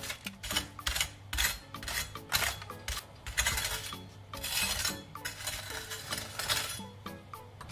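Rocking mezzaluna knife cutting through a crispy baked potato slab, the blade crunching through the crust and knocking on the metal baking tray under the parchment, in a series of uneven strokes.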